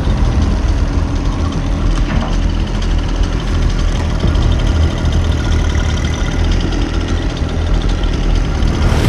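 John Deere 1025R sub-compact tractor's three-cylinder diesel engine running steadily under light load while the tractor pushes tree debris.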